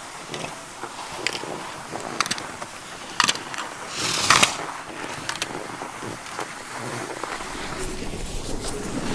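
Downhill skis sliding over packed snow with an even hiss, broken by several sharp clicks and a louder, longer edge scrape about four seconds in.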